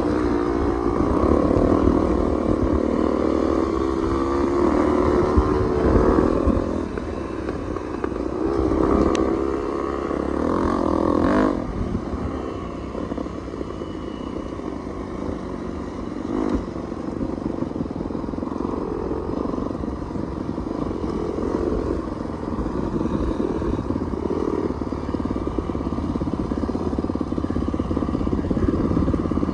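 Dirt bike engines running on a dirt trail, their pitch wavering up and down through the first dozen seconds, then settling into a lower, steadier run.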